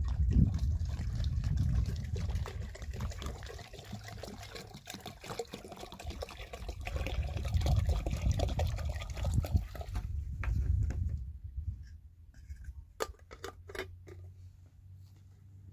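Water poured from a plastic jerrycan into a soot-blackened metal kettle, splashing and trickling for about ten seconds. Near the end come a few sharp clicks as the kettle's lid is handled.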